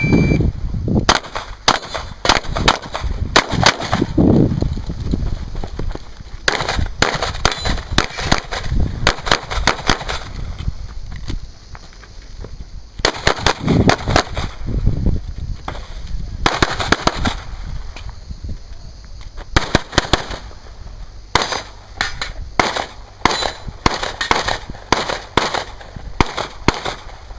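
A shot-timer start beep, then a 9mm CZ 75 SP-01 Shadow pistol firing rapid strings of shots in several clusters with short pauses between as the shooter moves from one firing position to the next.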